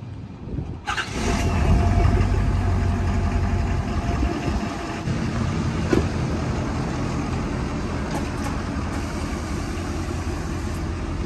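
A lifted pickup truck's engine starting about a second in, running loudest just after it catches and then settling into a steady idle. A single sharp knock sounds near the middle.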